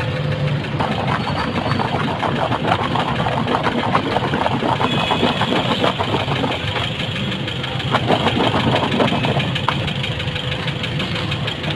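An engine running steadily, with irregular clicks and clatter over it.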